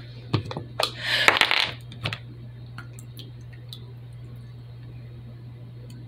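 Hard plastic toy parts clicking and clattering against a plastic container: a few sharp clicks and a brief rattle in the first two seconds, then only faint ticks over a low steady hum.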